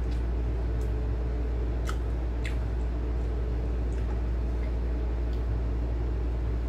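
Soft, wet chewing and lip-smacking clicks of someone eating pork and rice, a handful of them spread through, over a steady low hum.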